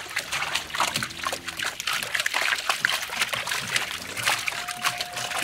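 A mass of small live fish flapping and splashing in a shallow net, making a dense, continuous crackle of tiny splashes and water dribbling.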